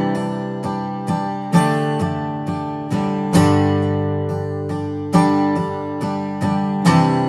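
Acoustic guitar strumming a ringing chord in a steady four-beat pattern. Each bar is one hard accented strum followed by three lighter strums, with the accent coming back about every two seconds.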